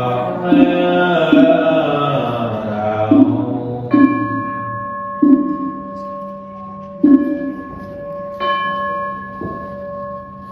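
Buddhist chanting dies away over the first few seconds, punctuated by short knocks. A Buddhist ceremonial bell is then struck three times, about 4, 7 and 8.5 seconds in, and keeps ringing with a steady tone, closing the chant.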